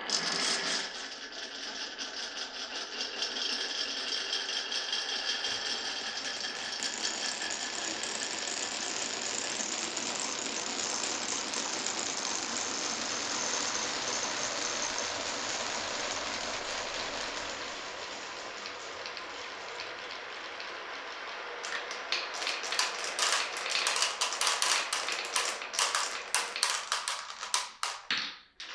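Many glass marbles rolling and rattling continuously along a wooden marble run, with a light ringing over the rolling. About two-thirds of the way in it turns into a quick, uneven run of sharp clacks as the marbles knock down the track, then stops abruptly.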